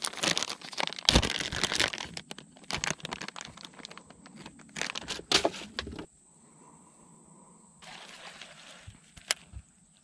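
Lure package being torn open and handled: a dense run of crinkling and crackling that stops suddenly about six seconds in, followed by a much quieter stretch with one sharp click near the end.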